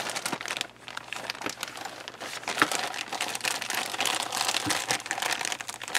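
Clear plastic bags of kit parts crinkling as hands handle and pull them apart. The crackling is dense, with a brief lull under a second in.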